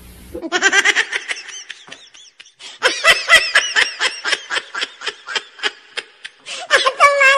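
A baby laughing in quick repeated bursts, ending in a long high squeal near the end.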